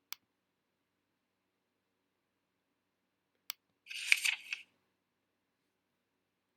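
A sharp click, a second click about three and a half seconds in, then a short crinkly rustle of paper being handled, with a few quick crackles in it.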